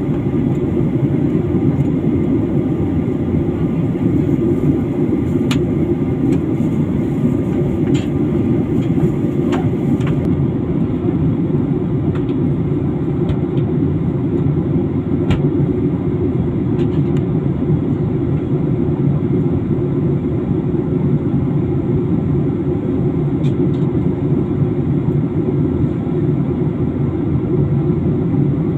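Airliner cabin noise in flight: a steady low rush of engine and airflow, with a few faint ticks.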